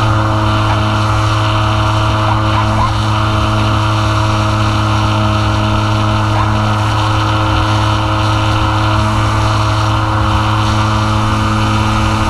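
E-flite Apprentice S 15e RC plane's electric motor and propeller running at steady throttle in flight: a constant buzzing drone with a few fixed tones over rushing air, picked up by the camera riding on the plane.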